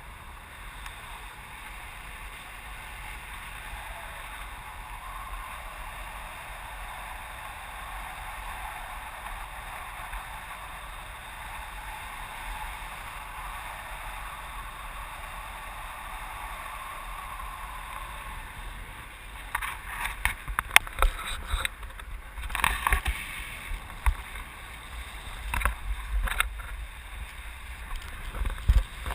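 Air rushing over the microphone of a camera flying under a tandem paraglider: a steady rush, then from about two-thirds of the way in, irregular buffeting thumps as gusts hit the microphone.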